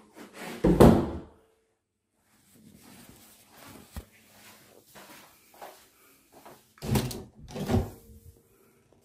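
An interior wooden door being handled: a loud thump about a second in, light knocks while moving, then two clunks close together near the end as the lever-handled door is opened.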